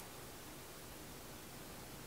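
Faint steady hiss of room tone, with no distinct sound standing out.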